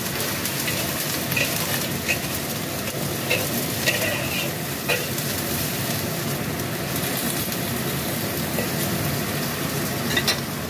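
Stir-fry sizzling in a black wok, with a metal ladle scraping through the food and clinking against the pan a few times in the first half and again near the end.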